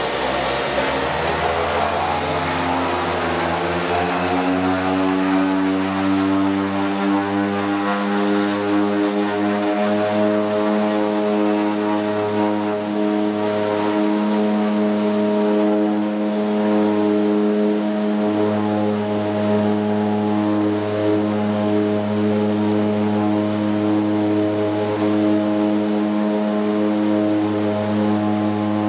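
The twin Pratt & Whitney Canada PT6A turboprop engines of a de Havilland Canada DHC-6 Twin Otter seaplane, heard inside the cabin. The propeller drone and a high turbine whine rise in pitch over the first few seconds as the engines spool up, then run steadily.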